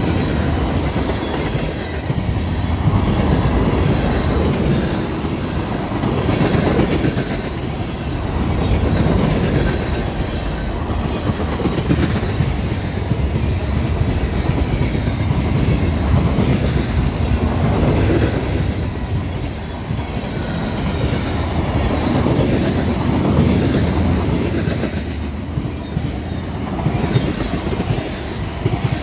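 Norfolk Southern freight train rolling past, its wheels clacking over rail joints in a continuous rapid patter over a low rumble that rises and falls every few seconds.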